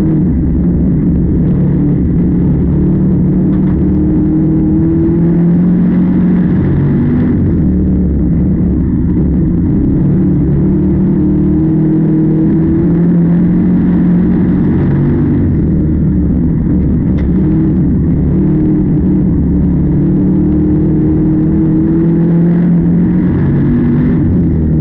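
Heavy farm machinery engine running steadily with a loud low drone whose pitch drifts a little up and down.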